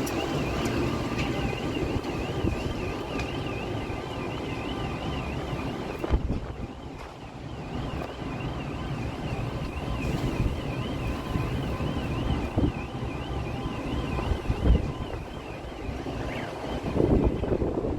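Wind buffeting the microphone over the steady noise of a heavy downpour. Through it runs a high electronic alarm warbling up and down about twice a second, which drops out briefly about six seconds in.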